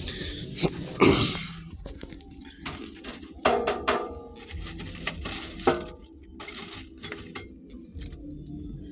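Irregular clattering knocks and clinks of hard objects being handled, with a louder scraping rustle about a second in.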